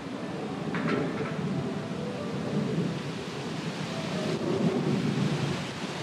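Strong wind and rain: a low rumble that swells and eases with the gusts, over a steady hiss of falling rain.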